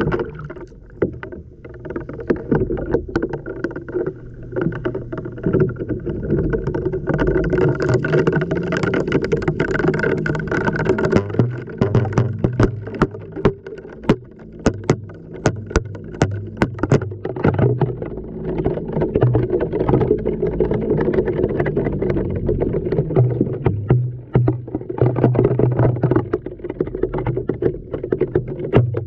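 Inside a running LG washing machine drum: water sloshing and the drum motor humming as the load turns over, with frequent irregular knocks as objects tumble and hit the drum.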